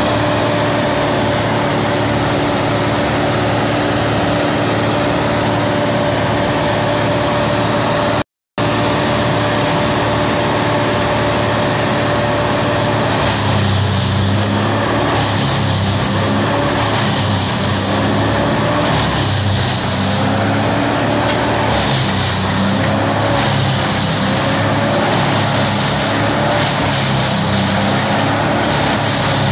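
Wood chipper's engine running steadily, with the sound cutting out for a moment about 8 seconds in. About 13 seconds in, a chainsaw joins it, cutting branches with a wavering, higher engine note and a hissing rasp.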